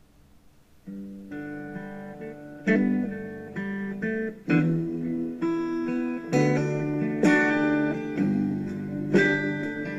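Background music: guitar playing plucked notes and chords, starting about a second in after near silence.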